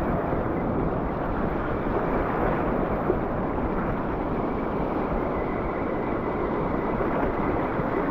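Steady rushing noise of wind on the microphone mixed with waves washing over a shallow rocky reef.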